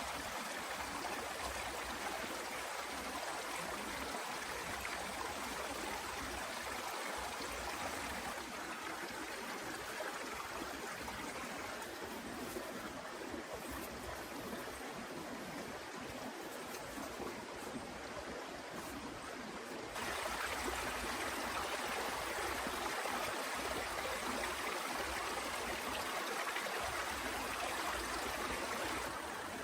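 Heavy rain falling: a steady rushing hiss. It jumps abruptly louder and brighter about two-thirds of the way through.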